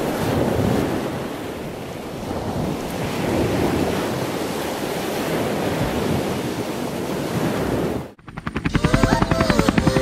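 Ocean surf washing and breaking against rocks, a steady rushing that cuts off suddenly about eight seconds in. Music with a fast pulsing beat and a melody starts right after.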